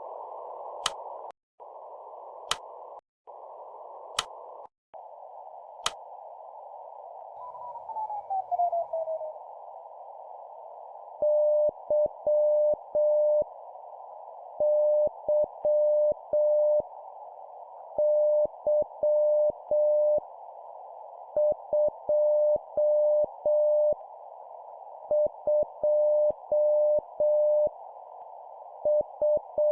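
Morse code (CW) tone near 600 Hz keyed at slow practice speed (7 words per minute) in short groups with pauses between them, over a steady band of filtered hiss. Before the keying starts, about eight seconds in, a tone glides downward.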